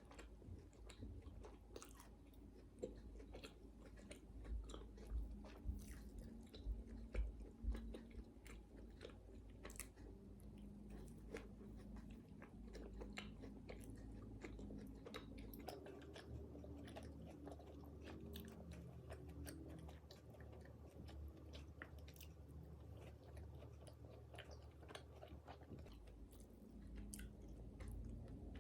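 A person biting and chewing food, with many small crunchy clicks and a few louder bites several seconds in.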